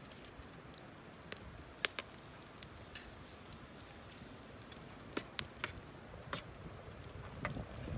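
Wood fire crackling, with sharp pops coming at irregular moments over a faint steady background.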